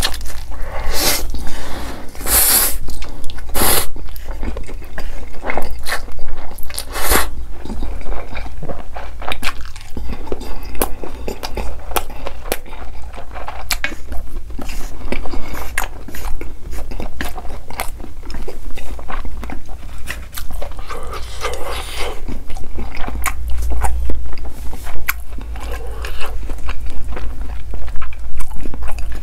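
Close-miked eating of spicy instant noodles: slurping up mouthfuls of noodles and chewing them, with a few long, loud slurps in the first several seconds and many small clicking mouth sounds between.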